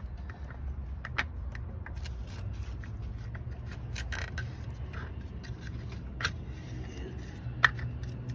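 LS7 lifters and their plastic guide trays being wiggled and pushed by hand into the lifter bores of an LS V8 block. It gives scattered light clicks, knocks and scrapes, with a sharper knock about a second in and the sharpest near the end. A steady low hum runs underneath.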